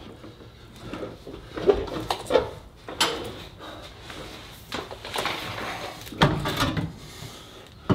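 Heavy Subaru rear differential and carrier being wrestled up into the chassis brackets: scattered metal clunks, knocks and scraping.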